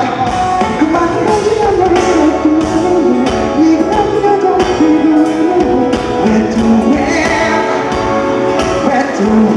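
Live pop concert music, played loud: singing over a steady dance beat with a band.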